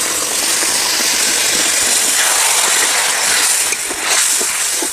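Water poured into a hot kadhai of frying masala, parwal and fish hisses and sizzles steadily. Near the end a metal spatula clicks and scrapes against the pan as the gravy is stirred.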